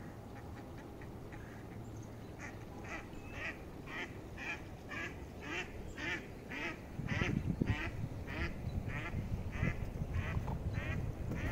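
A duck quacking in a long, even series of about two quacks a second, starting a couple of seconds in. A low rumble comes up under it about halfway through.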